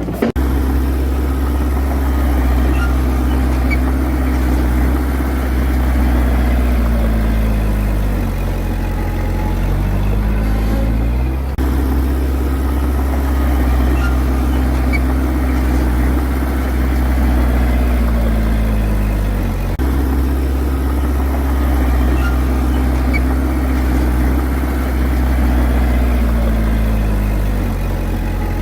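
Heavy diesel engine of an earthmoving machine running steadily. Its pitch dips and climbs back three times, about every nine seconds, as the engine takes load and recovers in a repeating work cycle.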